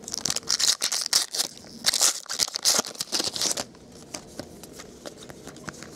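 Foil wrapper of a 2012 Bowman Draft baseball card pack being torn open and crinkled, a dense crackly rustle for about the first three and a half seconds. It is followed by quieter light clicks of the cards being handled.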